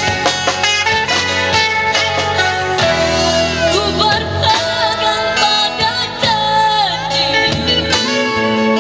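Live band music: a young girl singing into a microphone over electric guitar, bass guitar, drum kit and acoustic guitar.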